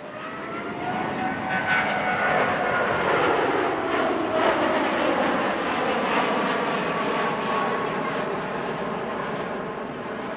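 Boeing 777-9 flying overhead in a steep banked turn, its two GE9X turbofan engines giving a broad jet rush with a fan whine. The whine rises in pitch over the first couple of seconds and then slowly sinks, while the sound swells to its loudest mid-way and fades near the end.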